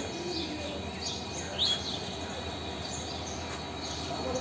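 Small birds chirping in short, quick notes that sweep down in pitch, scattered over a steady background of outdoor noise.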